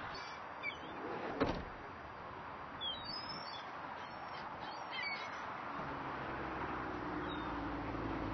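Gulls giving short, high calls several times over a steady background rush, with a single sharp knock about a second and a half in and a low hum coming in near the end.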